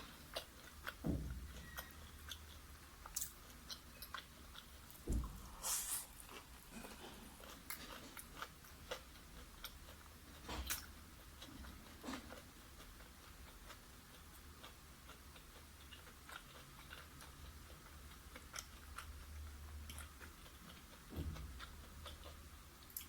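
Close-up chewing and biting of boneless fried chicken pieces, with scattered small clicks and a few soft thumps.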